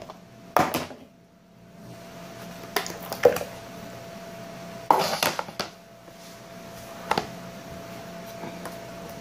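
Plastic food-storage container being opened by hand: its snap-lock lid tabs unclipped and the clear plastic lid pulled off and handled, giving a scattering of sharp plastic clicks and clatters, busiest about five seconds in. A steady hum runs underneath from about two seconds in.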